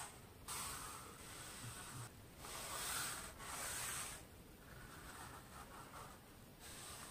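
Fineliner pen scratching faintly across paper as lines are drawn along a ruler, in several strokes each a second or two long with short pauses between.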